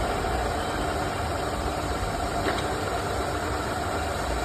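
ARNO double-spindle milling machine running steadily, its horizontal milling spindle turning under power with an even mechanical hum.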